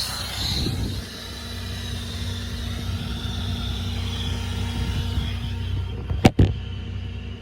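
Service truck's 6.7 Cummins diesel running steadily, driving the hydraulic air compressor. Air hisses for about the first half-second, then dies away. Two sharp knocks in quick succession come about six seconds in and are the loudest sounds.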